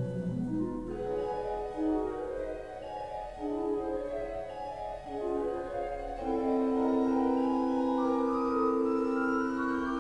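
Pipe organ playing a classical piece: moving lines of sustained notes, then louder held chords from about six seconds in.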